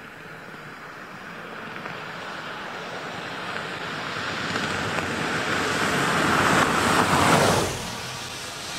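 A Volkswagen SUV drives past on a dirt road. The noise of its tyres and engine grows steadily louder as it approaches, peaks about seven seconds in, then drops away sharply as it passes.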